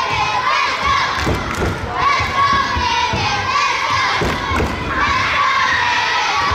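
Crowd of children shouting and cheering at a basketball game, with repeated dull thuds underneath.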